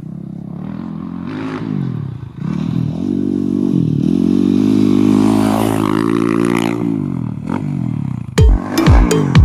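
Yamaha YZ450F dirt bike's single-cylinder four-stroke engine revving hard several times, each rise in pitch followed by a drop as the rider shifts or backs off, growing louder to a long pull near the middle. Near the end, music with heavy bass drum beats comes in.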